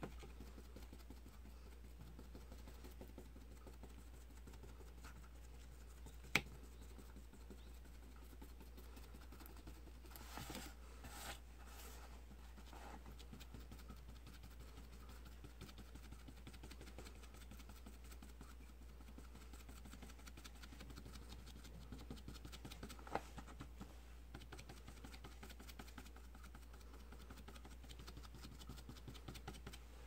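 Paintbrush stippling lacquer paint onto foam board: faint, quick, scratchy dabs of the bristles, with a few louder clicks now and then, over a low steady hum.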